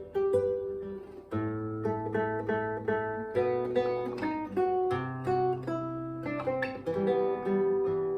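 Acoustic guitar playing a plucked melody over low bass notes, fingerpicked with an occasional strum.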